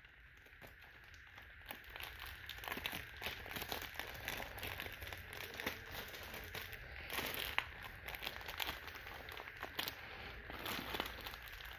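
Plastic packaging bag crinkling and cardboard inserts rustling as toy train parts are handled and lifted out of a box, with scattered small clicks.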